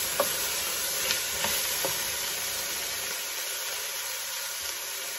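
Chopped onions, celery and red peppers sizzling in oil in an enamelled cast-iron casserole. A wooden spoon stirs them, with a few light knocks against the pot in the first couple of seconds, then the sizzle goes on alone.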